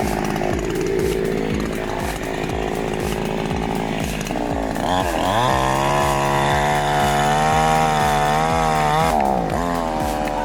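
Chainsaw running at part throttle, then revved up to full speed about five seconds in, holding a steady high whine for about four seconds before dropping back near the end.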